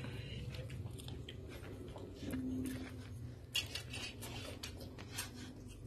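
Faint, scattered clinks of metal spoons and forks against plates during a meal, with a brief low hum about two seconds in.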